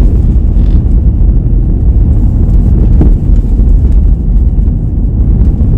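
Steady low rumble of road and engine noise inside a car's cabin while driving, with a faint click about three seconds in.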